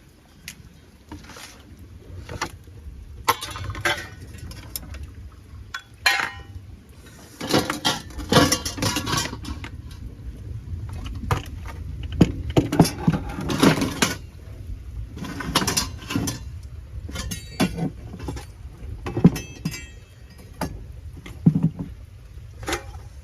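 Irregular clattering and clinking of metal cooking pots and utensils being picked up and handled, some strikes ringing briefly, over a steady low rumble.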